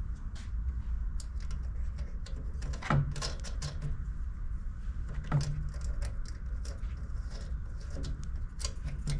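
Irregular light clicks and knocks of hand tools and metal parts being handled while working on a small generator's carburetor studs, with two heavier knocks about three and five seconds in, over a steady low hum.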